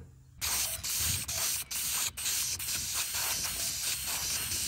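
Aerosol spray-paint can spraying, probably paint going onto the new oil pan: a run of long hisses starting about half a second in, broken by a few brief pauses.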